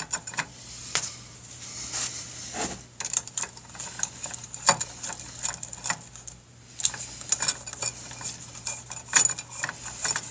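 Irregular light metallic clicks and clinks of hand tools and clutch spring bolts being handled while fitting motorcycle clutch springs, over a faint steady hum.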